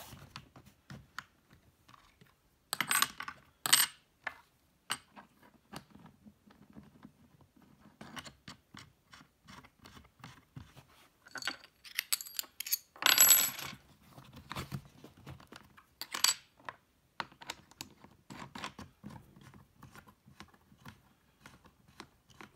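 Small bolt-and-washer hardware clicking and clinking as web bolt clamps, fender washers and wing nuts are handled and fitted onto a hard mounting board: a scatter of light clicks with a few louder clinks, the loudest and longest about 13 seconds in.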